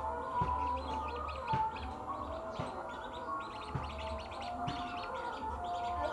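Chicks peeping in a quick, steady stream of high chirps, with a low knock about once a second underneath.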